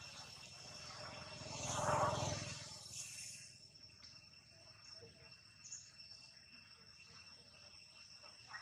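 Insects droning steadily in the background with a thin, high-pitched hum. A brief rush of noise swells and fades about two seconds in.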